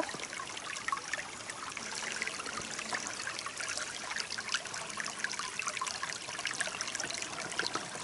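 Shallow forest stream trickling over stones, a steady running-water sound.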